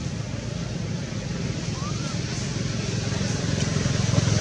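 Steady low engine hum of a motor vehicle, growing louder toward the end, with a faint short rising squeak about two seconds in.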